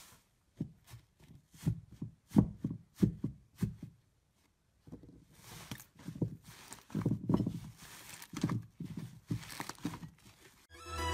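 Hands pressing into thick slime in a tub: a run of sharp squelching pops, about three a second, as trapped air is squeezed out. After a short break, fluffy slime is stretched and pulled apart, giving a denser tearing sound. Electronic music starts near the end.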